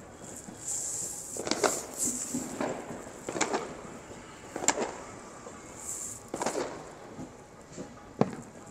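Firecrackers going off in an irregular string of bangs and pops, some trailing a short rumble, with the sharpest crack near the end.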